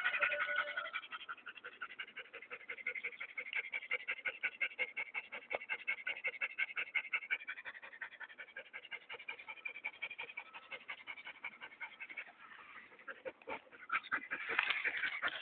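Small dog panting rapidly and steadily close to the microphone, several quick breaths a second, louder near the end.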